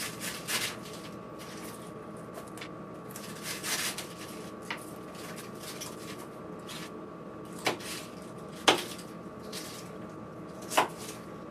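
Soft rustling and handling of soaked rice noodles being pulled apart into a plastic colander, with scattered light clicks and a few sharper knocks against the bowl, the loudest in the second half. A faint steady tone hums underneath.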